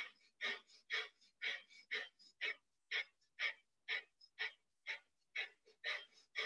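Breath of fire, a rapid yogic breathing: short, forceful exhales through the nose pumped from the belly, about two a second in an even rhythm, with fainter inhales between them.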